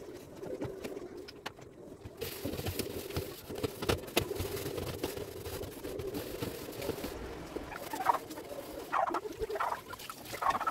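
Dishes, glasses and plastic items clinking and knocking on a granite kitchen counter during washing-up, with tap water running for a few seconds in the middle. A few short squeaks come near the end.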